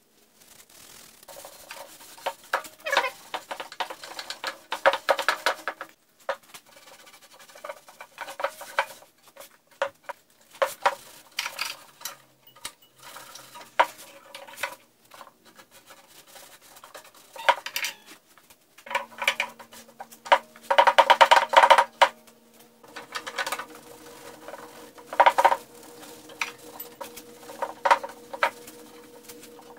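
A polishing cloth being rubbed by hand over the painted metal housing and parts of an old table saw, in irregular strokes that squeak against the surface.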